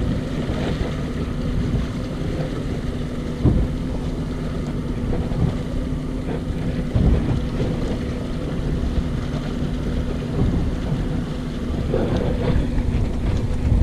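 Boat engine running steadily at trolling speed, a constant low hum, with wind buffeting the microphone and a couple of brief thumps.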